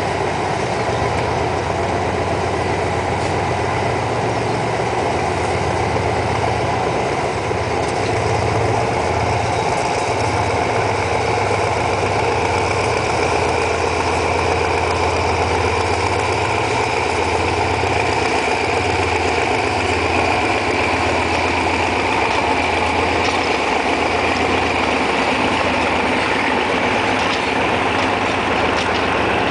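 General Electric GEA-class diesel-electric locomotive running with a steady low diesel drone as it hauls a passenger train slowly past. Near the end the coaches roll by with faint clicking from the wheels.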